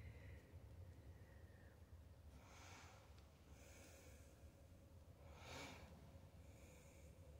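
Near silence, broken by about four faint, soft breaths about a second apart in the second half.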